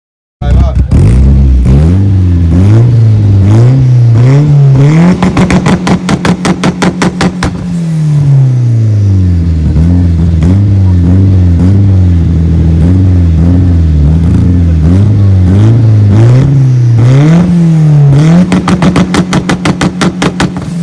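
Performance car engine revved hard over and over, its pitch climbing and falling. Twice it sits at the top of the revs in a rapid stutter, bouncing off the rev limiter.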